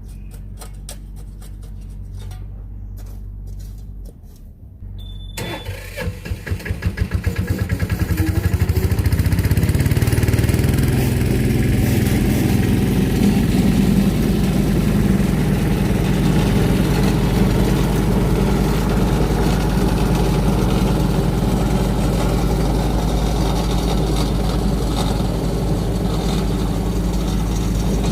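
An engine is started about five seconds in: a quick series of pulses that speed up as it catches, then it runs steadily and loudly. Before the start there is a low steady hum.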